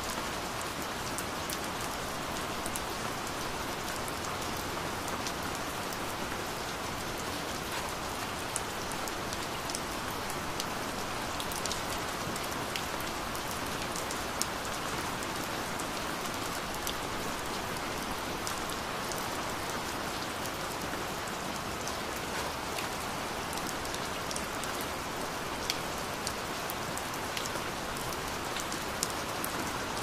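Steady rain: an even hiss with scattered sharp ticks of single drops striking.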